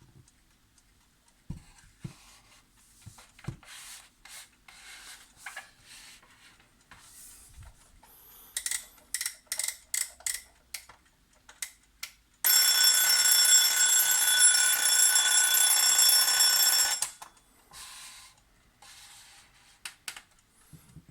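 Royal Samsung 7 alarm clock's alarm bell ringing loudly for about four and a half seconds, then cutting off suddenly. Before it, a run of scattered clicks and light knocks.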